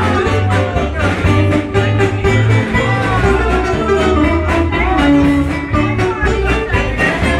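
Live dance music from a small band, an electric guitar and an electronic keyboard, playing a lively tune over a steady beat and bass line.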